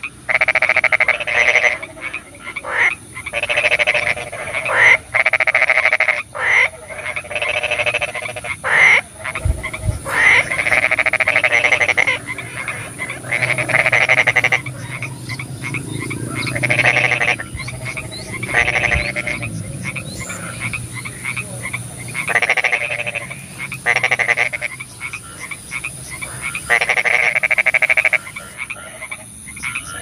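A chorus of frogs croaking: repeated runs of rapid, pulsed croaks about a second or two long, several frogs calling over one another.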